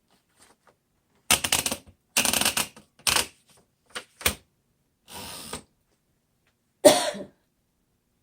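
1951 Remington Quiet Riter manual typewriter at work: several short bursts of rapid mechanical clacking and ratcheting, separated by pauses, the loudest burst near the end.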